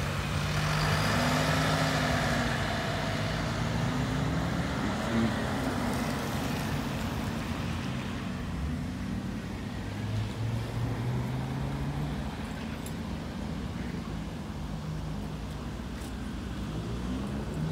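Audi hatchback driving away along a wet road, its engine note rising and falling in pitch over the first several seconds, with tyre hiss. The sound then settles into a lower, steadier traffic drone.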